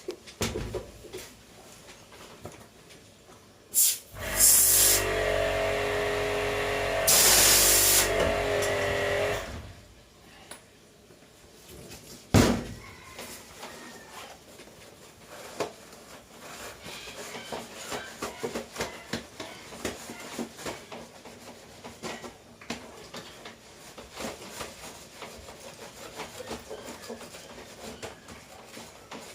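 A small motor running for about five seconds with a loud hiss, its pitch dropping as it winds down, amid scattered clicks and clatter of handling.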